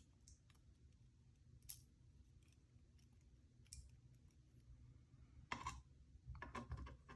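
Faint, sparse clicks of small lock pins and springs being handled and set down, with a closer group of clicks about five and a half seconds in.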